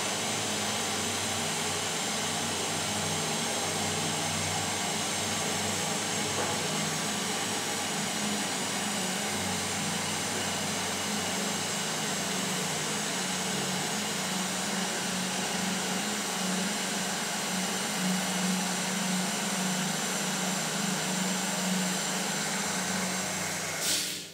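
Toilet cistern refilling after a flush: a steady hiss of water through the fill valve with a low hum, cutting off suddenly near the end.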